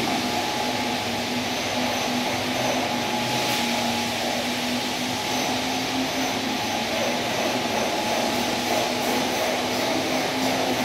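A steady mechanical drone: a machine or motor running without a break, with a constant low hum under an even rushing noise.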